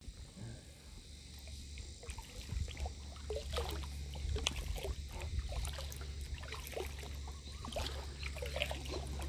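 Kayak paddle strokes in calm water: blades dipping and dripping in irregular clusters of small splashes and trickles, over a steady low rumble.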